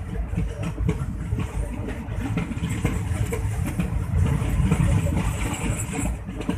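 Passenger train coach running on the rails, heard at an open window: a steady rumble of wheels on track with irregular clattering and rattling from the coach.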